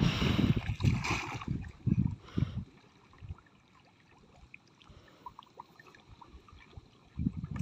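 Muddy ditch water sloshing and splashing as a woven bamboo basket is swept through it and lifted out, loudest in the first two and a half seconds, then only faint small drips and splashes.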